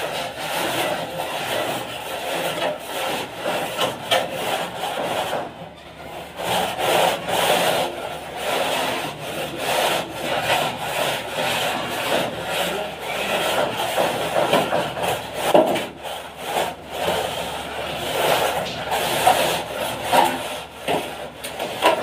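A long metal straight edge scraped back and forth across fresh cement plaster on a wall, a repeated rasping rub with each stroke as the plaster is levelled. There is a short pause about six seconds in.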